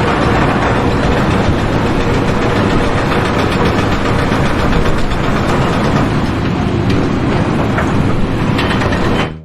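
A loud, steady engine or heavy machinery running, with scattered clicks and rattles, cut off abruptly near the end.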